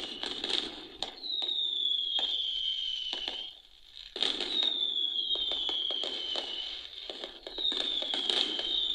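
Fireworks display playing back through a phone's speaker: bursts and crackles, with a high whistle that falls slowly in pitch heard three times.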